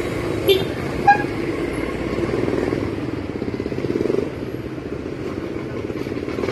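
Motorcycle engine running steadily while riding, heard from on the bike. Two short sharp sounds come about half a second and a second in, and the engine swells briefly about four seconds in.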